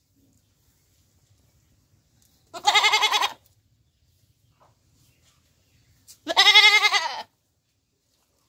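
A goat bleating twice, about three and a half seconds apart, each call under a second long with a wavering pitch; the second drops in pitch at its end.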